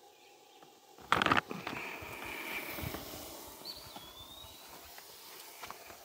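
Beef sizzling in a frying pan on a small camp stove, a steady hiss, with a short loud rustle about a second in and a single whistled bird call, rising then falling, about halfway through.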